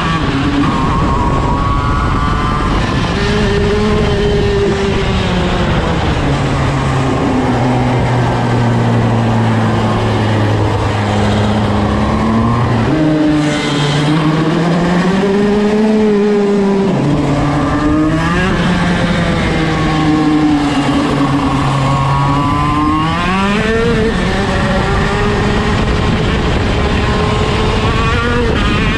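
KZ shifter kart's 125cc two-stroke engine heard onboard during a lap, revving up and down through its six-speed gearbox. The pitch climbs on the straights, drops quickly at the shifts and off the throttle, and settles low through a slow corner before rising again.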